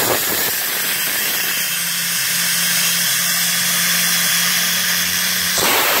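Pressurised steam blasting from a small copper fire-tube live steam boiler through its opened engine-outlet ball valve: a loud, steady hiss with a faint low tone under it.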